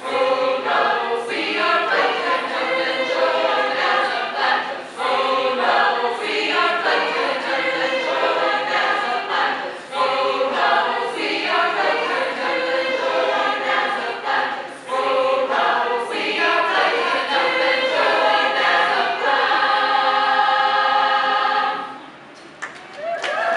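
A chorus of many voices singing unaccompanied in short, rhythmic phrases. It ends on a long held chord that cuts off shortly before the end.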